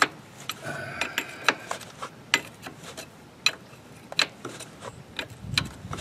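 Hand ratchet wrench clicking in short, uneven strokes as a long bolt is backed out, sharp metallic clicks about every half second to second. A dull low thump comes about five and a half seconds in.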